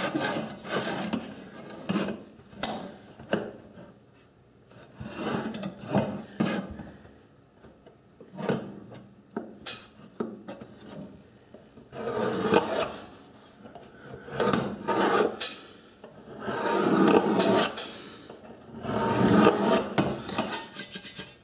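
A steel scriber scratching layout lines into the non-stick coating of a metal pie pan along a steel rule, in repeated scratching strokes, with light clicks of the rule against the pan. The strokes come thicker and louder in the second half.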